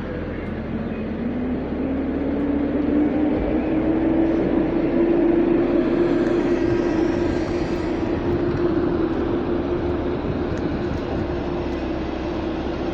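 PKP Intercity electric locomotive hauling its coaches away: a motor whine rises in pitch over the first few seconds and then holds steady, over the rumble of the wheels on the rails.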